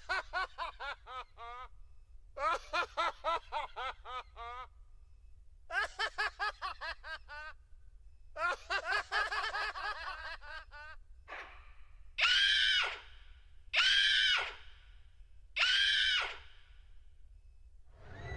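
Built-in sampled sound effects of a Casio CT-X9000 keyboard: four bursts of rapid 'ha-ha-ha' laughter, each falling in pitch, then three short screams about a second and a half apart.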